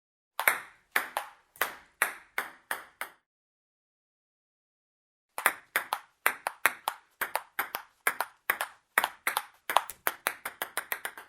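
Table tennis rally: the celluloid ball clicks sharply off paddles and table, about eight hits, then after a two-second pause a longer rally whose hits come faster near the end.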